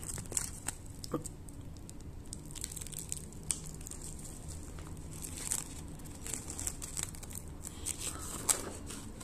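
Clear plastic stretch film (Vitafilm) crinkling and rustling as it is pulled taut and wound around a freshly grafted cactus and its pot, heard as faint, irregular crackles. The film is binding the graft tight so the scion and rootstock stay pressed together and fuse.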